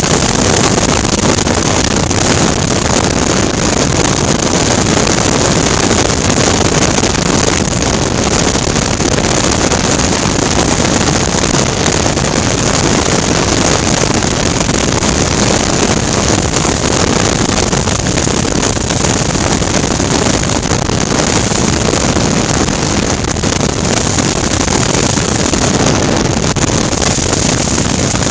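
Steady wind rush over a helmet-mounted microphone, with a 2019 Suzuki V-Strom 650's V-twin engine running underneath at a constant cruising speed.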